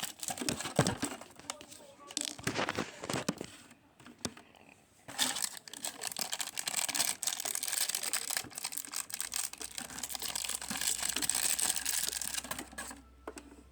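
Packaging being crinkled and torn open by hand, in busy crackling spells with a short pause about four seconds in.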